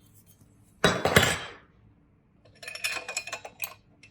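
Small metal mounting hardware (nuts, bolts and brackets) clattering as it is handled: a loud rattling clatter about a second in, then a run of lighter metallic clinks.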